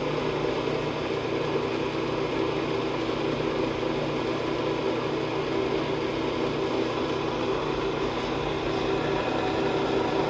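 Ammco 4100 brake lathe running: its electric motor and spindle drive make a steady hum with no change in pitch or level.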